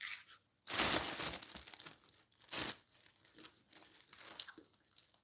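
Crinkling and rustling of a plastic bag being handled, in irregular bursts. The loudest burst comes about a second in.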